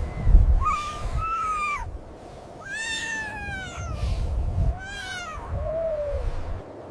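Tiger cub mewing: about five high, cat-like calls that slide down in pitch, the longest about three seconds in, over a low rumble.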